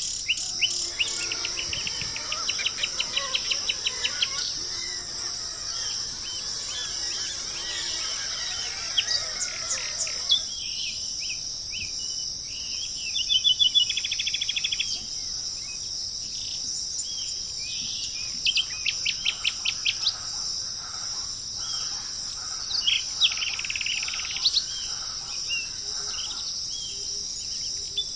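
Songbirds singing rapid trilled phrases that recur every few seconds, over a steady high-pitched insect drone.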